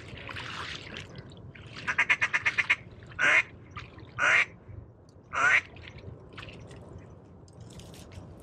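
Loud duck quacking: a quick run of about nine short notes, then three longer quacks about a second apart, each dropping slightly in pitch.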